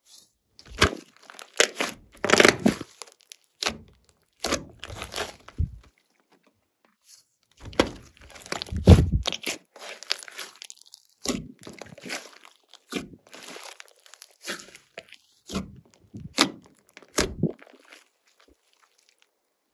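Glossy slime being squished and worked by hand, giving irregular sticky pops, crackles and squelches. The loudest squishes come about two and a half seconds in and about nine seconds in.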